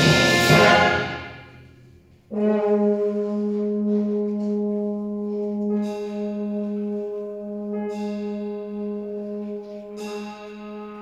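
Symphony orchestra playing a trumpet concerto live: a loud full chord dies away over the first two seconds into a brief pause. Then a long, steady low note is held, with quieter chords entering over it three times.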